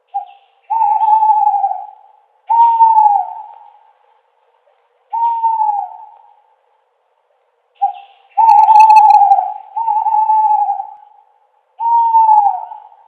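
Owl hooting: six drawn-out hoots at an even pitch, two of them led in by a short note, several dropping in pitch as they end.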